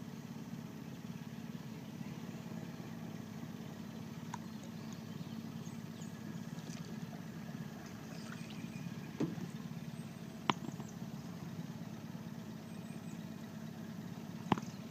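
Boat motor idling steadily in a low hum, with a couple of light clicks a little past halfway.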